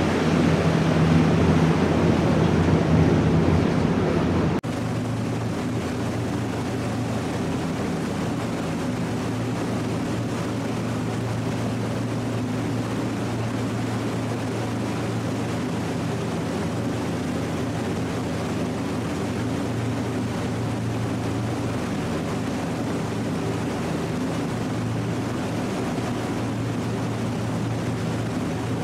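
Tour catamaran's twin turbocharged Detroit Diesel engines running at cruising speed: a steady low drone with water rushing along the hull. The rush of water is louder for the first few seconds, then cuts off suddenly and leaves the steadier engine drone.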